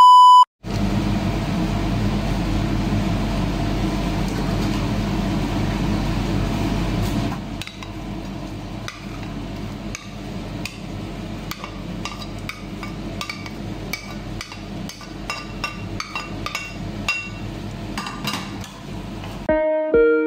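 A short, loud test-tone beep, then about seven seconds of steady noise with a low hum. After that, a wooden spatula taps and scrapes as chopped onion is stirred in a nonstick wok, with many sharp clicks, and guitar music comes in near the end.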